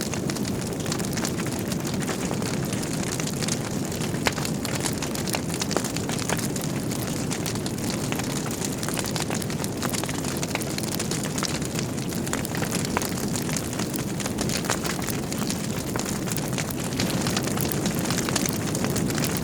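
Wood fire burning in a fireplace: a steady low rumble of flames with frequent sharp crackles and pops from the burning logs, a little louder near the end.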